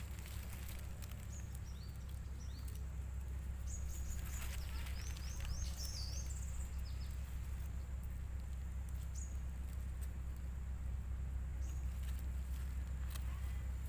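Dry leaves rustling and crackling under a large catfish as it is held down and a fishing hook is worked out of its mouth, over a steady low rumble. Short high chirps of birds come in bunches, mostly in the first half.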